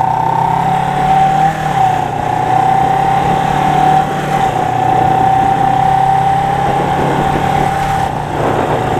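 1977 Suzuki GS 400's two-cylinder engine running steadily, its pitch dropping slightly about a second and a half in.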